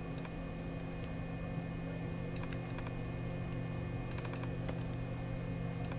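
A handful of sharp computer keyboard clicks, scattered singly with a quick cluster of three or four about four seconds in, over a steady low hum.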